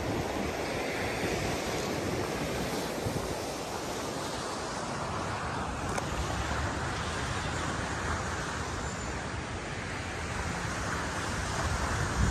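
Surf breaking and washing on a beach as a steady rushing hiss, with wind buffeting the microphone in low rumbles. A stronger gust comes at the very end.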